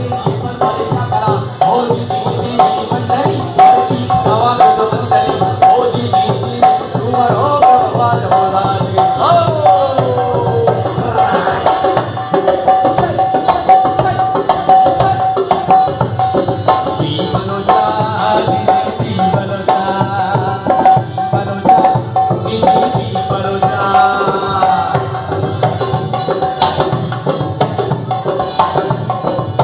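Live Baloch folk music: hand drums beat a fast, steady rhythm under a held drone note and a sliding melody line, with a singer on a microphone.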